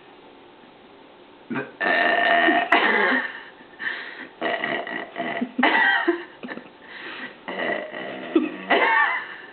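A woman belching loudly: a long, drawn-out burp starts about a second and a half in, then runs on as a string of shorter pitched belches with brief breaks between them.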